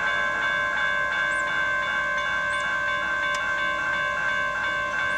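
Railroad crossing warning bell ringing, its ringing tone repeating in a quick, even rhythm that signals an approaching train.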